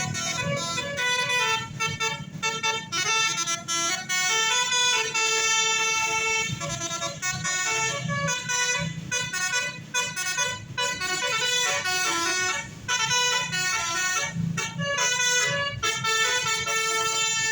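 Tour bus's telolet basuri musical horn playing a quick melody of short, stepping notes, with a brief pause about two-thirds of the way through.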